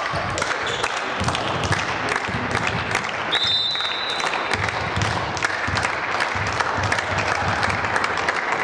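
Spectators clapping and cheering in a sports hall between volleyball rallies. A referee's whistle sounds once, briefly, about three seconds in, the signal for the serve.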